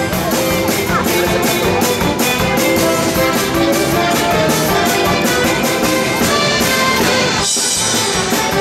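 Instrumental music with a steady beat, the accompaniment to a circus act.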